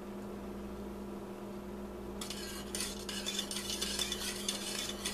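Wire whisk clinking and scraping against a stainless steel saucepan as it stirs a boiling chocolate sugar mixture, starting about two seconds in; before that only a steady low hum.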